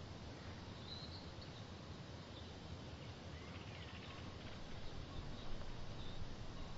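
Quiet woodland ambience: a low steady background hiss with a few faint, short bird chirps, one about a second in and others scattered later.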